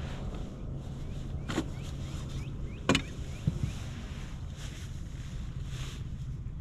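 A few sharp knocks and clunks of gear being handled aboard a bass boat, the loudest about three seconds in, over a low hum that drops out and comes back.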